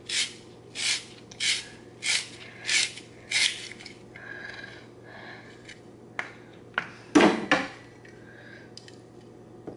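Fresh zucchini being cut into thick ribbons with a handheld spiralizer, twisted in short turns with a crunchy, scraping cut about every half second for the first few seconds. Then come fainter squeaky scraping turns, and a few sharper knocks and a louder rasp around seven seconds in as the cutting stops.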